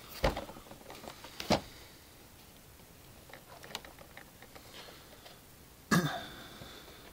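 Handling noise from a toy lightsaber's cardboard-and-plastic box: two sharp knocks in the first second and a half, a few faint taps, and a louder short knock near the end.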